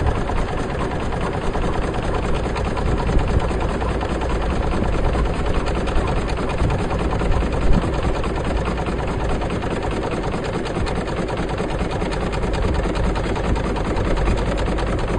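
A boat's engine running steadily under way, a rapid even mechanical beat over a low rumble, heard from on board.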